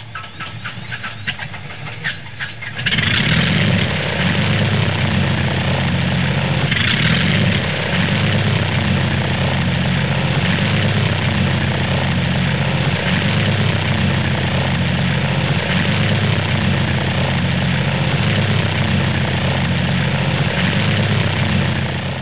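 Cessna light aircraft's piston engine cranking on the starter with a run of even clicks, catching about three seconds in and then running steadily with a loud, pulsing drone.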